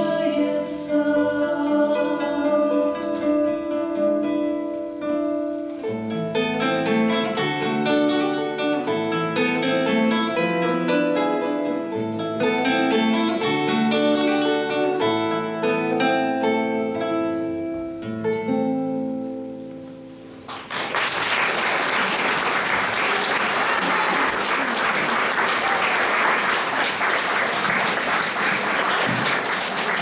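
Two acoustic guitars play the closing bars of a song in clear plucked notes, with sung voices holding notes at the start. The last chords die away, and about two-thirds through, an audience bursts into steady applause.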